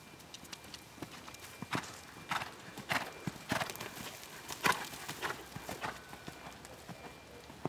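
Horse cantering on a sand arena footing: a regular beat of hoofbeats about one stride every 0.6 seconds, growing louder as the horse passes close midway and fading as it moves away.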